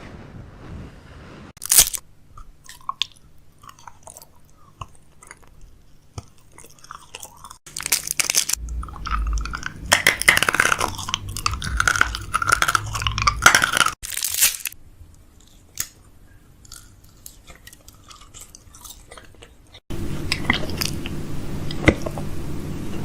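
Someone chewing and crunching food close to the microphone, with sharp crunches and a louder run of chewing partway through.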